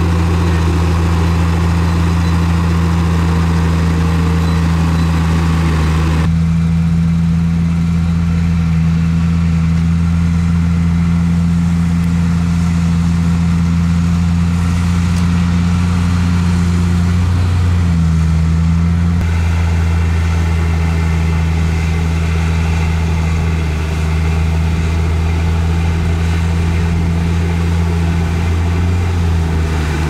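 Heavy diesel engine of earthmoving equipment running steadily with a deep drone, its pitch dipping briefly about eighteen seconds in. The higher rattle and hiss above the drone drops away abruptly about six seconds in and returns just before twenty seconds.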